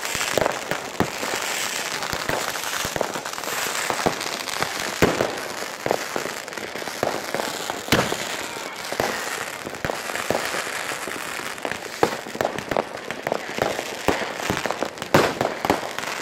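New Year fireworks going off all around: a continuous crackling of firecrackers with sharp bangs every second or so, and a quick run of bangs near the end.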